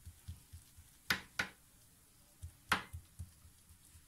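Wooden spoon pressing and patting a sticky coconut-and-sugar mixture flat on a granite countertop: a string of soft thumps with a few sharper taps, two about a second in and one near the three-second mark.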